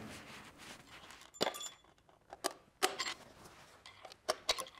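Irregular short metallic clicks and knocks as hands and tools work on a bare engine block hanging from a lifting chain, getting a piston out of its bore.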